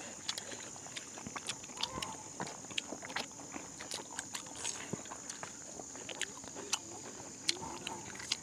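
People eating with their hands from a banana-leaf spread: close chewing, smacking and small crunching clicks at an irregular pace, over a steady high-pitched hum.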